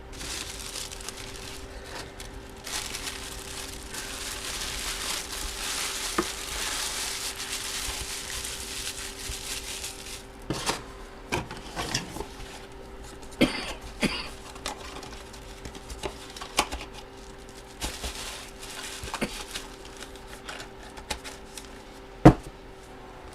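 Hands handling packaging in a memorabilia box break: several seconds of rustling and crinkling plastic wrap, then scattered clicks and taps of hard plastic cases and packing being handled, with one sharp knock near the end. A faint steady hum lies under it all.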